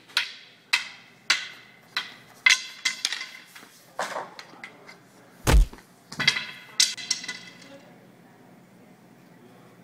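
Rattan arnis sticks clacking together in a steady drill rhythm, a little under two strikes a second, then a quicker flurry of strikes. A single heavy, deep thump about five and a half seconds in, then a few more sharp clacks.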